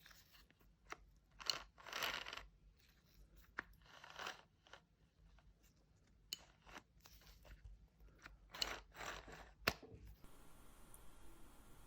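A VW-group car door lock module being worked by hand: irregular clicks and short scrapes as its arm pushes the slide up and down. The sounds stop about ten seconds in.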